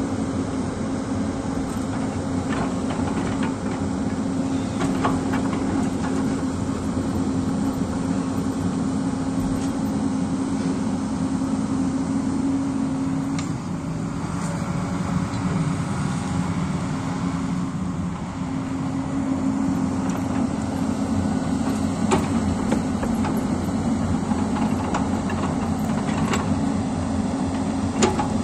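Hyundai 220 crawler excavator's diesel engine running steadily under load as it digs into a hillside, with occasional sharp knocks from the bucket and rocks. The engine eases off for a few seconds near the middle, then picks up again.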